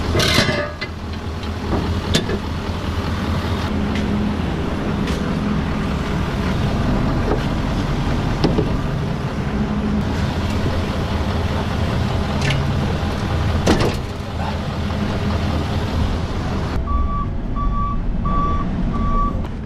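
GMC pickup's engine idling, with several sharp metal clanks as the plow mount lever and hardware are worked. Near the end, inside the cab, a chime beeps evenly at a high pitch, a little under twice a second.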